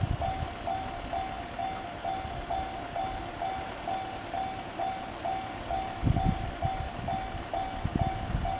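Electronic alarm bell of a JR level crossing ringing in the standard JR crossing tone, an even ding repeated about three times a second: the warning that a train is approaching. Bursts of low rumble come at the start, about six seconds in and near the end.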